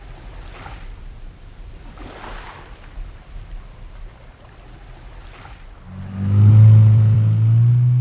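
Faint washes of water, then from about six seconds in a motorboat's engine comes up suddenly and loudly as the boat runs past at speed, its pitch stepping up a little.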